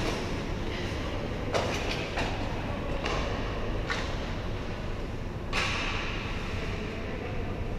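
Ice hockey skate blades scraping and cutting on the ice, several sharp scrapes with a short hiss after each, the loudest about five and a half seconds in, over a steady low rumble of the rink hall.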